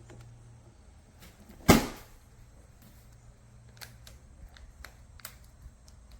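A single loud knock a little under two seconds in, followed by scattered light clicks and taps over a low steady hum.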